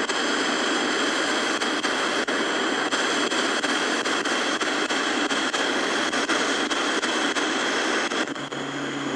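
Shortwave receiver's speaker hissing with AM static as its tuning knob steps through empty 27 MHz CB channels, with faint clicks scattered through the hiss. Near the end the hiss drops and a low steady hum comes in.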